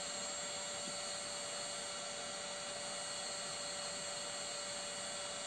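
Parkside PHLGA 20-Li A1 cordless heat gun running steadily on its 550 °C setting: the small fan motor gives a steady whine over the rush of air from the nozzle.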